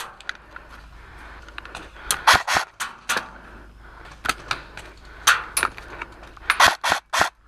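Airsoft guns firing single shots: about a dozen sharp cracks at irregular intervals, some coming in quick twos and threes.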